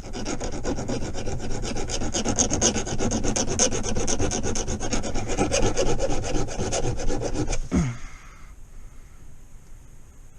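Hand filing on the metal gear shifter part: rapid, even back-and-forth rasping strokes that stop abruptly about eight seconds in.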